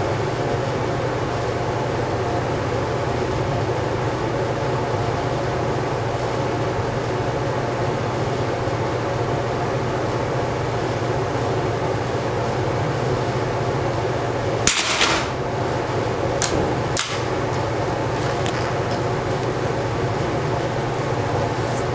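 Steady mechanical hum of ventilation fans. About two-thirds of the way through comes one sharp crack with a short ring, then two lighter clicks.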